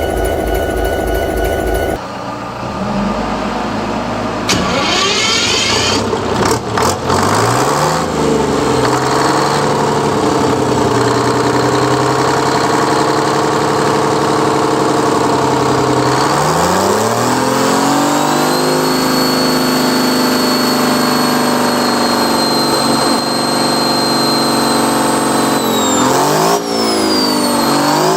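Detroit Diesel 6-71 turbocharged two-stroke inline-six diesel running and being revved: its pitch steps up twice, and a high thin whine joins at the higher speed.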